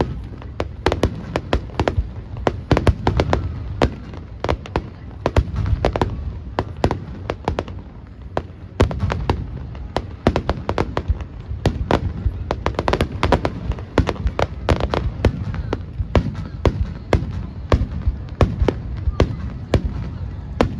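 Fireworks display in full barrage: rapid sharp bangs and crackles of shells bursting, several a second, over a continuous low rumble.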